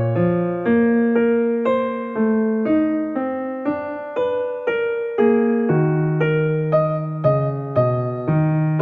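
Background piano music: a gentle melody over a bass line, with a new note or chord struck about twice a second, each fading before the next.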